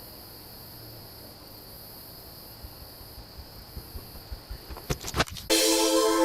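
A cricket chirping steadily at a high pitch, with a few small knocks and clicks near the end. About five and a half seconds in, loud electronic music starts and covers it.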